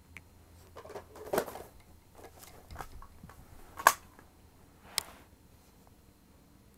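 Small plastic toy figures being handled and set down on carpet: a few scattered clicks and knocks, the sharpest about four seconds in.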